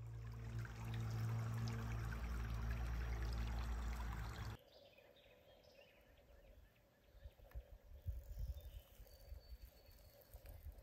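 Small creek flowing and trickling steadily. About four and a half seconds in it cuts off abruptly, leaving faint outdoor ambience with scattered low rumbles.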